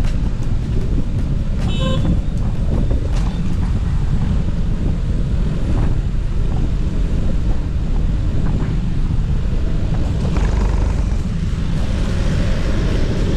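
Steady wind rumble on the camera's microphone from riding an electric scooter through city traffic, with a brief car horn toot about two seconds in.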